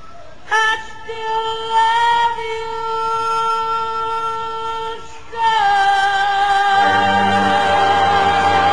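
A female vocalist sings a long held note, breaks off briefly about five seconds in, then holds a second long note with vibrato. Near the end the backing music swells in low beneath her voice, as the song builds to its close.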